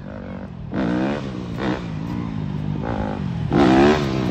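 Dirt bike engine revving in repeated rising surges as the rider holds a wheelie, getting louder near the end as the bike comes closer.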